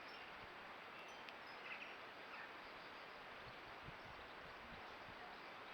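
Faint steady hiss of the camera's microphone, with a few faint, short, high bird chirps about two seconds in and a couple of soft low knocks near the middle.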